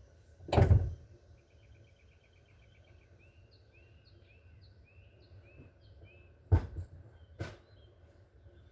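A dull thump about half a second in, then a songbird singing in the background: a rapid chirping trill followed by a string of short, falling chirps. Two sharp knocks, about a second apart, come near the end.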